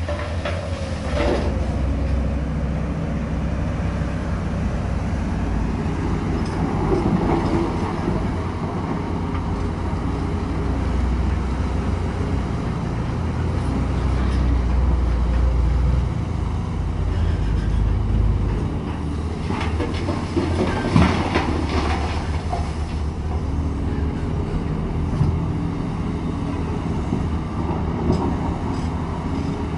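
Large Komatsu hydraulic mining excavator working, its diesel engine and hydraulics giving a steady low rumble. Rock drops into a dump truck's steel bed about a second in, and there are occasional knocks and clanks as the bucket digs into the rock face.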